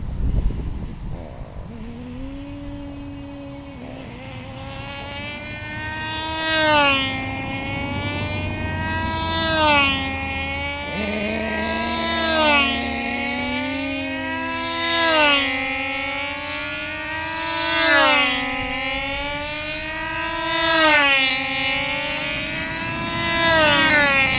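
Small model-aircraft racing engines running flat out as the planes circle, a high buzz that rises and falls in pitch about every three seconds as each lap passes. One engine is heard from about two seconds in and a second joins about eleven seconds in.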